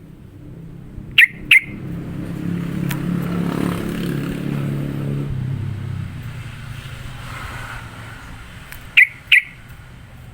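Yellow-vented bulbul (trucukan) giving sharp, loud double notes, one pair about a second in and another near the end. Between them a passing motor vehicle's engine swells and fades away.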